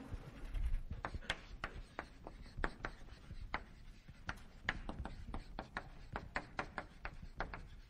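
Chalk writing on a blackboard: irregular sharp taps and short scrapes, a few a second, as words are written out.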